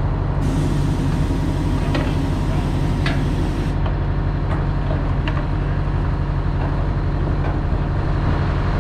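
Diesel engine idling steadily, with a few light metal clinks as steel parts of a dragline's lattice boom are handled.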